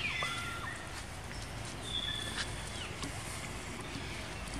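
Thin, high-pitched cries of a young long-tailed macaque. One falls in pitch right at the start; another is held for about half a second around two seconds in, then drops.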